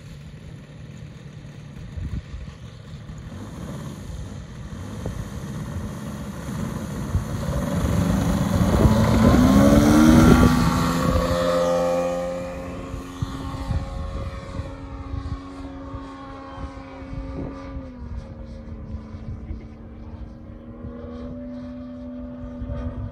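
DA-200 four-cylinder boxer gas engine of a 40% scale Extra 330 LX radio-control plane running at high throttle on the takeoff run. It grows loudest as the plane rolls past about ten seconds in, then settles to a steady drone as the plane climbs away, dropping slightly in pitch a little past the middle.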